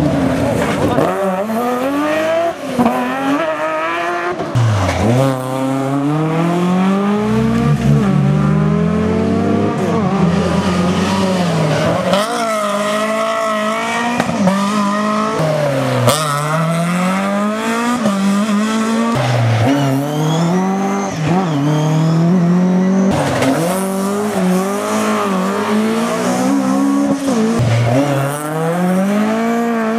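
Rally car engines at full throttle, the pitch climbing through the gears and dropping sharply on each lift or shift, over and over. Between about 12 and 16 seconds in, the revs swing up and down quickly.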